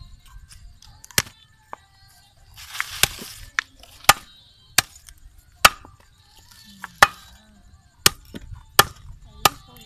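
Cleaver chopping through fish on a wooden board: about ten sharp chops at irregular intervals, with a brief hissing rasp about three seconds in.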